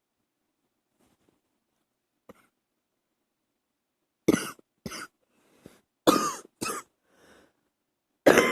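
A person coughing: quiet for about four seconds, then two coughs, two more about six seconds in, and another starting right at the end.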